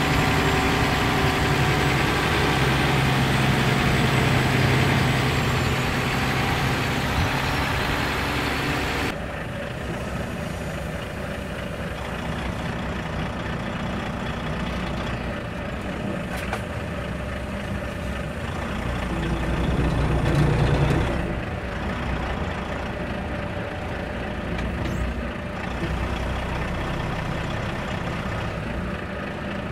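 Volvo FH16 timber truck's 16-litre straight-six diesel running steadily while it drives and manoeuvres. The sound changes abruptly about a third of the way in, and the engine swells louder for a couple of seconds past the middle.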